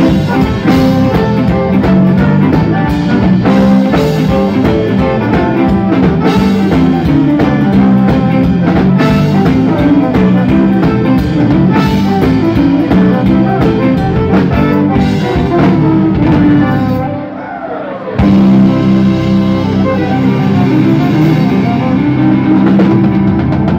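Live Cajun band playing: button accordion, fiddle, electric guitar and drum kit together at a steady dance beat. About three-quarters of the way through the sound briefly drops away with a falling slide, then the full band comes back in.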